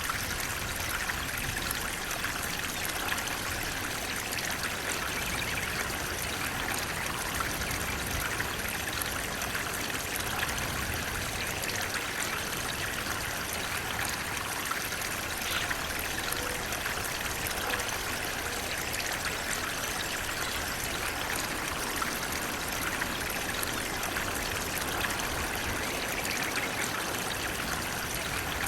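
Water flowing steadily: an even, continuous rushing with no breaks or changes.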